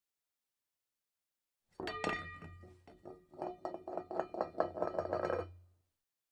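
A rapid run of light clinks and taps with a ringing tone, like glass or dishware being knocked together, getting quicker and louder before it cuts off near the end, over a low hum.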